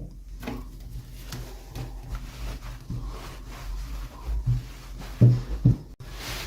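Hands unboxing and handling miniature toys and their packaging: a run of small clicks, taps and rustles, with two louder knocks about five seconds in.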